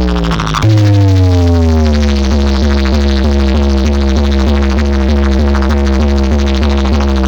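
Loud electronic DJ remix music played through a large sound-system rig: a deep bass note comes in under a second in, with slowly falling synthesizer tones over a fast, even pulsing beat.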